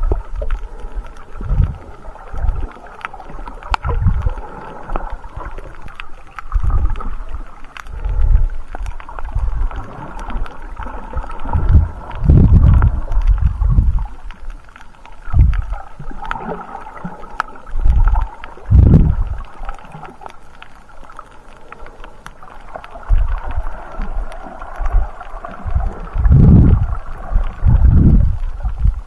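Muffled underwater sound from a camera held under the water while snorkelling: irregular low rumbling surges of moving water every few seconds, with faint scattered clicks.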